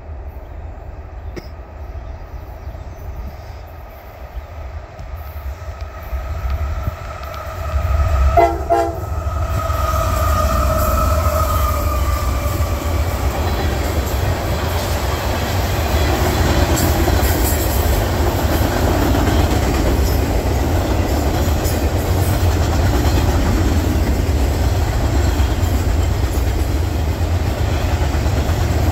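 A diesel freight train's horn sounds for about the first dozen seconds, growing louder as the locomotives approach and dipping slightly in pitch as they pass. It is followed by the steady rumble and clickety-clack of hopper cars and boxcars rolling by on the rails.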